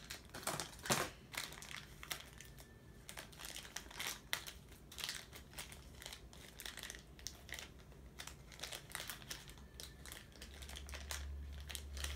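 Crinkling and crackling of a small plastic toy wrapper being opened and handled, in many irregular rustles and clicks. A steady low hum comes in near the end.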